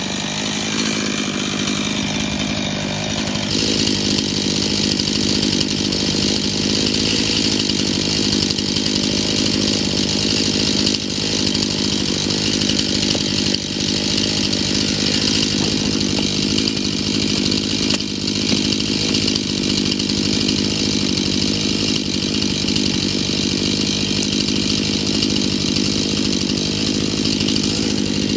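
Gasoline chainsaw running steadily at high revs on a large tree stump, its pitch settling a few seconds in.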